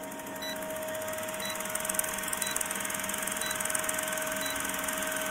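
A steady machine-like drone with hiss and a constant tone, slowly getting louder, with a faint tick about once a second.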